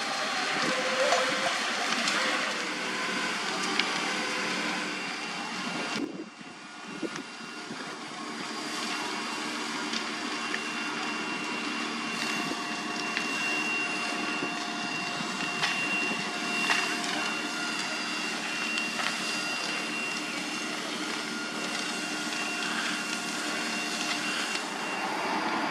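Fire engine pumps and engines running with a steady drone and hiss while hoses spray water on the fire. The sound dips briefly about six seconds in.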